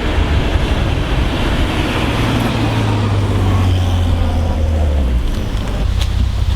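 Car driving, with steady engine and road noise and a low engine drone that eases off about five seconds in.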